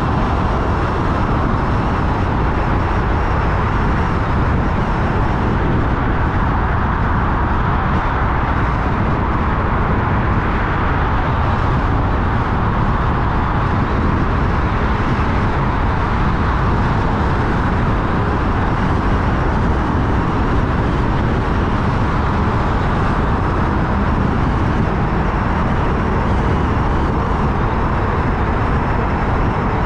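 Steady road and tyre noise of a car driving at motorway speed, an even rumble that neither rises nor falls.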